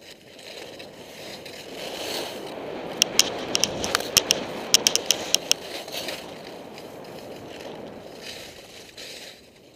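Skis sliding and scraping over snow, the hiss swelling and then easing off, with a quick run of sharp clicks about three to five and a half seconds in.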